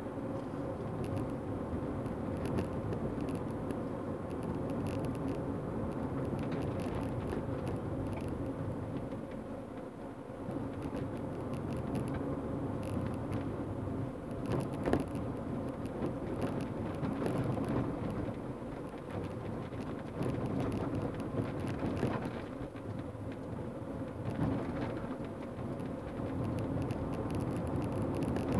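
Car cabin noise while driving over a rough, worn lane surface: a steady rumble of engine and tyres on the road, with frequent small knocks and rattles as the car jolts over the bumps.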